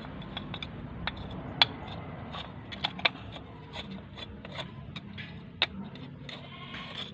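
Irregular light clicks and taps of metal tools and parts being handled, with a few sharper knocks about one and a half, three and five and a half seconds in.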